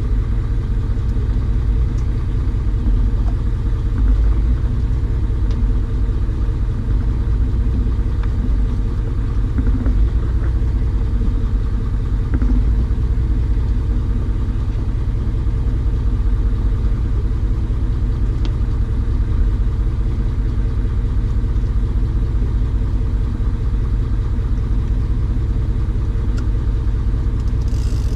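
An engine running steadily with a low, even rumble, holding one speed throughout.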